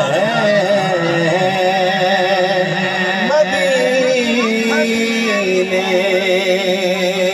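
A man's voice reciting a naat (Urdu devotional poem in praise of the Prophet), sung into a microphone, drawing out long, wavering, ornamented notes in one sustained phrase.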